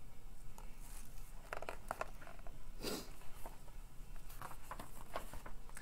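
A paper picture book being handled as a page is turned: a few short, soft rustles of paper, over a faint steady hum of room tone.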